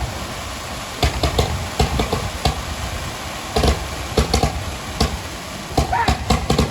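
An irregular series of sharp bangs or beats, several a second, over a steady background din.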